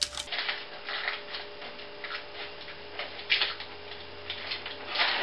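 Soft irregular ticks and light scrapes, a few a second, from a spatula and hands working brownie batter in a parchment-lined glass baking dish, over a faint steady hum.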